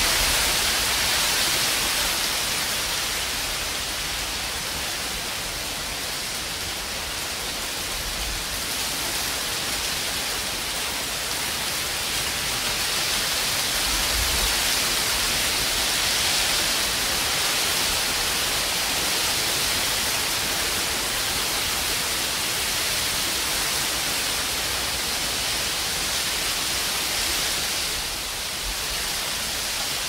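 Heavy rain falling in a steady, dense hiss, with a couple of brief low rumbles about a third and halfway through.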